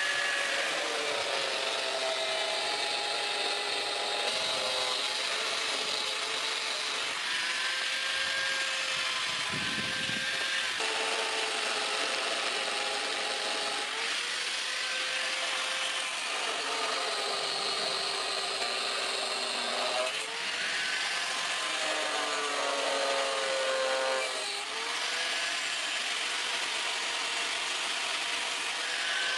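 Angle grinder with a thin cutting disc cutting across a wooden plank. The motor runs continuously, its whine sagging and recovering in pitch as the disc is pressed into the cut, over the hiss of the disc on wood.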